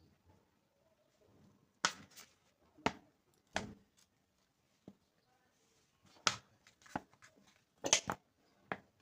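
Handling noise at a workbench: about ten sharp clicks and light taps at irregular intervals, from objects being picked up, set down and worked by hand, with the loudest near two, six and eight seconds in.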